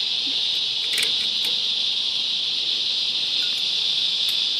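Steady, high-pitched chorus of night insects such as crickets, with a few faint clicks of metal tongs on a grill grate about a second in and near the end.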